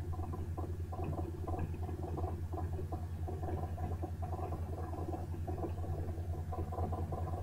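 A steady low hum, with faint irregular light taps and crackles as a chapati is turned by hand and cooks on a hot iron tawa.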